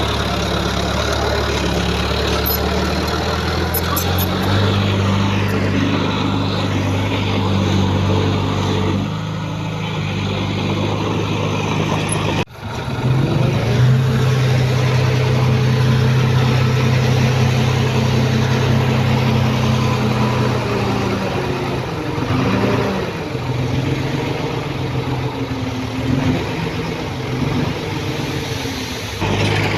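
Diesel engines of heavy earthmoving machinery running under work, with the engine note stepping up and down. A sudden break about twelve seconds in is followed by a steadier, stronger engine note.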